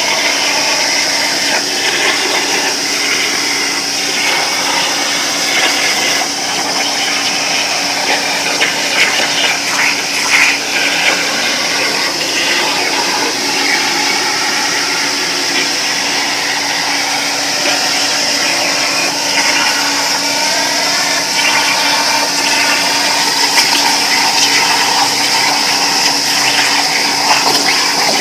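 Plasma cutting machine's torch cutting metal plate: a loud, steady hiss of the plasma arc and air jet, with a steady hum beneath and some crackling.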